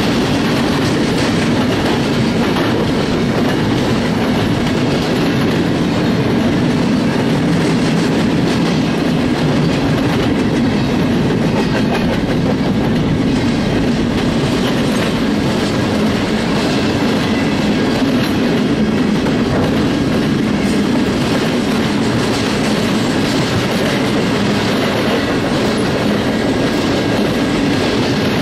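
Freight cars of a passing train, open-top gondolas and then empty flatcars, rolling by close at speed: a steady, loud rumble of steel wheels on the rails.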